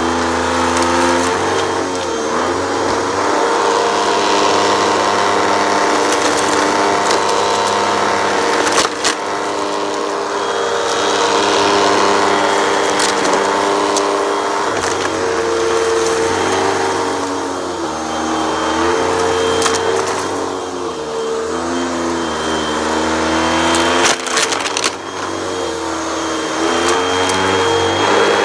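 Hoover upright vacuum cleaner running with its brushroll on carpet while it sucks up heaps of lint and debris. The motor drone shifts up and down in pitch, with crackling and scattered sharp clicks of grit rattling up through the nozzle.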